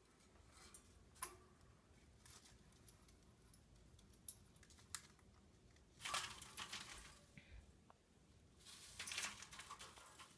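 Faint, scattered clicks and two short rustling, crinkling noises, one about six seconds in and one about nine seconds in, with no calls.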